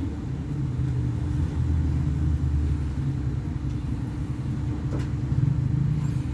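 Volvo B58 bus's diesel engine running with a steady low drone, with one sharp click about five seconds in.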